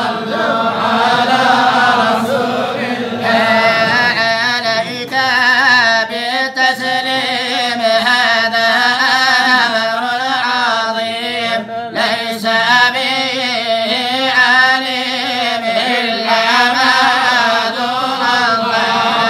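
A group of men chanting a Moroccan devotional poem (madih) together, unaccompanied. The sung lines waver and bend continuously, with no pauses.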